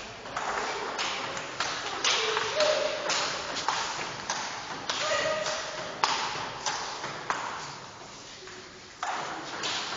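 Table tennis rally: the celluloid ball clicking off the rubber paddles and bouncing on the table, about two taps a second with a pause near the end.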